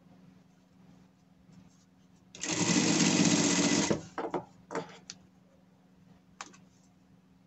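Industrial straight-stitch sewing machine running a stitch seam through layered cotton fabric: one run of about a second and a half a couple of seconds in, then a few short bursts of stitches and a single click. A faint steady motor hum lies underneath.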